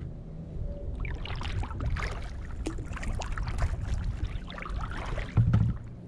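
Kayak paddle strokes through the water: irregular splashes and drips off the blades, starting about a second in, over a steady low rumble.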